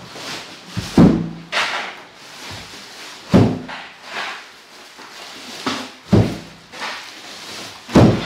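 Household thumps and knocks as things are handled and set down while cleaning: four heavy thuds two to three seconds apart, with lighter knocks between them.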